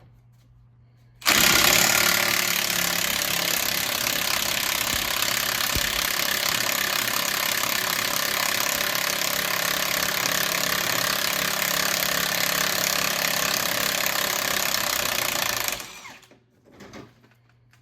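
Pneumatic impact tool hammering without a break on rusted rear-axle U-bolt nuts. It starts abruptly about a second in, runs loud and steady for about fourteen seconds, then stops.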